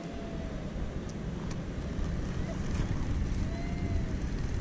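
Wind buffeting the action camera's microphone, a low rumble that grows slightly louder.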